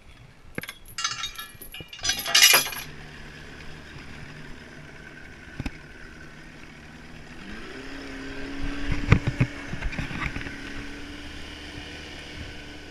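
Keys jangling, then a boat's outboard motor starts about two and a half seconds in and runs steadily. A few seconds later its pitch rises as the throttle opens and the boat gets under way, with a few knocks near the middle.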